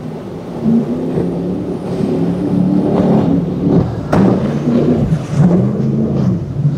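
Fountain powerboat's engines running hard, their pitch rising and falling as the boat crosses waves, over the hiss of spray. There is one sharp slap about four seconds in.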